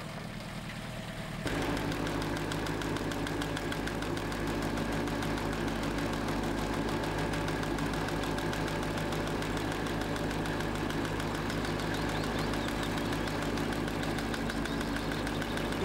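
Weed-cutting boat's engine running steadily as the boat cuts weed, growing louder and fuller about a second and a half in.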